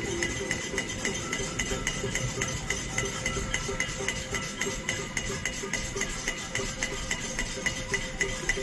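Pot-banging protest (cacerolada): metal pots and pans struck over and over, a steady rhythm of about four ringing strikes a second.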